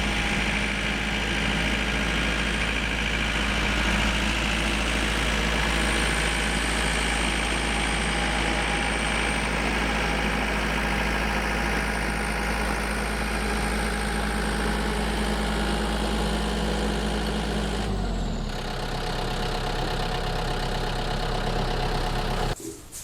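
Compact tractor's diesel engine running steadily, then dropping to a lower speed about 18 seconds in. It cuts off abruptly near the end.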